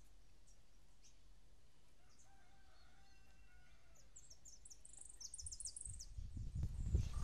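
Caged jilguero finch giving a short burst of quick, high chirping notes about four seconds in. A low rumble builds near the end.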